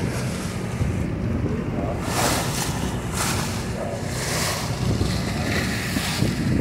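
Strong wind buffeting the microphone while choppy river water splashes against the side of a boat, over a steady low rumble. The splashes come as several rushes about a second apart.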